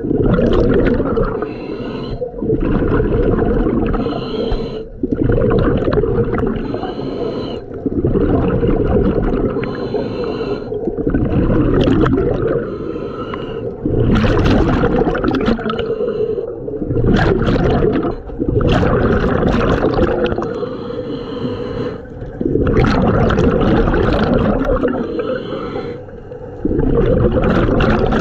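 A scuba diver breathing through a regulator, heard close to the camera: breaths in and out with gurgling bursts of exhaled bubbles, repeating about every three to four seconds.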